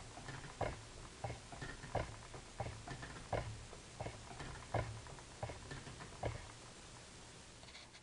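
Schacht spinning wheel being treadled with the flyer and bobbin spinning under Scotch tension: a steady rhythmic knocking, about one strong click every three-quarters of a second with lighter ticks between, over a low hum. The knocking dies away about six or seven seconds in as the wheel slows.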